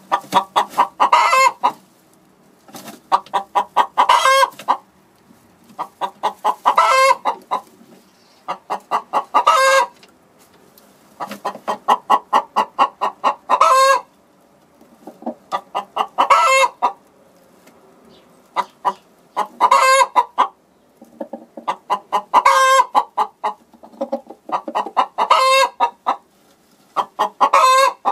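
Hen cackling: runs of rapid clucks, each ending in a louder drawn-out squawk, repeated about every three seconds.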